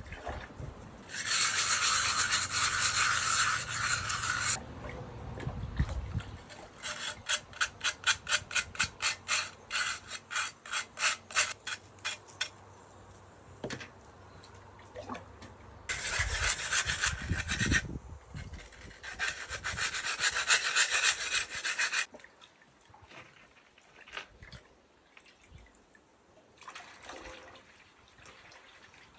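Sandpaper rubbed over bisque-fired pottery. There are stretches of steady sanding and, in the middle, a run of quick back-and-forth strokes at about three to four a second. Only faint scrapes are heard near the end.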